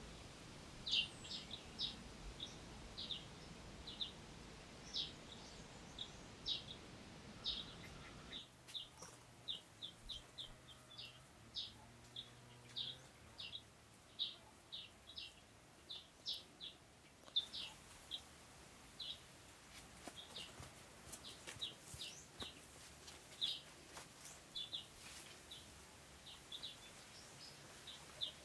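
Small birds chirping: short, high calls repeating irregularly, about one or two a second, over a faint outdoor hiss.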